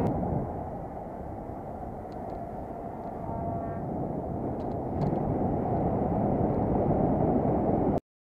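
Wind buffeting the microphone of a camera carried on a moving bicycle, mixed with tyre and road rumble. The rumble grows louder about five seconds in and cuts off suddenly near the end.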